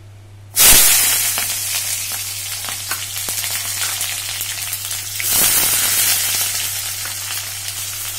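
Chopped onion hitting hot oil in a kadai: a loud sizzle starts suddenly about half a second in. A second handful about five seconds in makes it surge again, and then it settles into steady frying.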